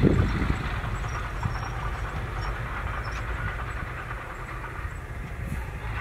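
Heavy diesel dump truck running with a low rumble, loudest at the start and easing within the first second into a steadier drone with a rushing noise over it.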